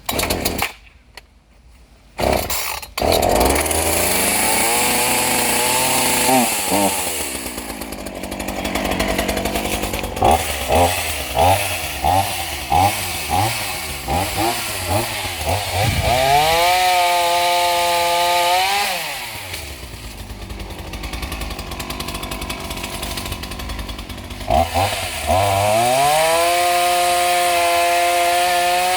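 Gasoline chainsaw starting up about two seconds in and idling, then blipped on the throttle about once a second. It is twice revved up to a steady high-pitched full-throttle run of several seconds, dropping back to idle in between.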